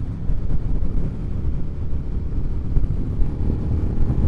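Suzuki SV650's 645 cc V-twin engine running under way with wind noise on the microphone, the bike gently speeding up. The engine note stands out more clearly near the end.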